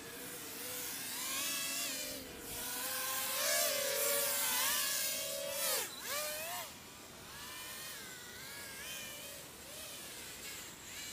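Micro FPV quadcopter's brushless motors (DYS 1104, 4000 kV) spinning 3-inch Gemfan props, whining with a pitch that rises and falls as the throttle changes. It is loudest around the middle, swoops sharply about six seconds in, then runs more softly.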